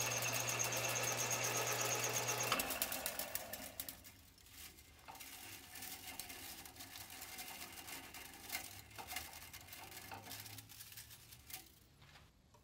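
Drill press running as it drills through a metal cylinder in a vise, switched off about two and a half seconds in and spinning down. Then quieter, scattered clinks and scrapes of the workpiece and metal chips being handled in the vise.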